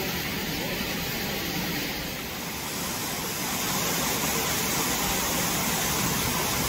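Shallow rocky stream flowing, a steady rush of water that grows a little louder and brighter about halfway through.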